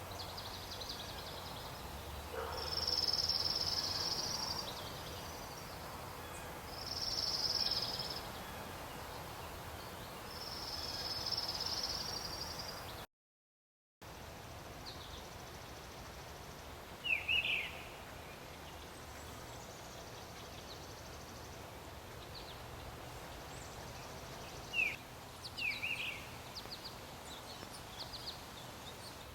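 Outdoor wildlife sound: three long, high buzzes of about two seconds each, then, after a short break in the sound, a few brief bird chirps over a steady background.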